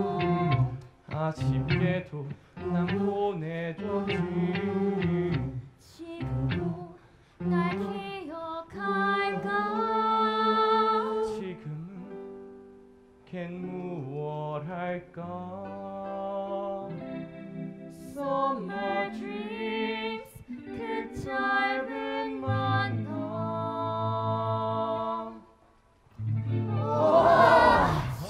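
Musical-theatre song sung live with backing music: solo voices sing melodic phrases with short pauses between them, some notes held long.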